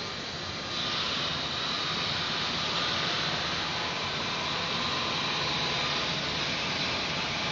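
Steady rushing outdoor background noise at a rooftop webcam microphone, growing louder about a second in and then holding steady.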